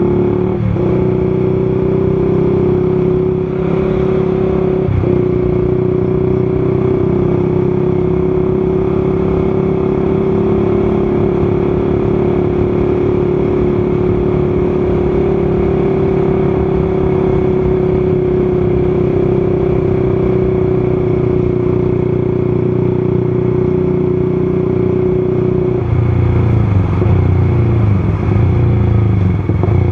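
Motorcycle engine running at a steady cruising speed while being ridden, its note holding a constant pitch. Near the end the note drops lower and deeper.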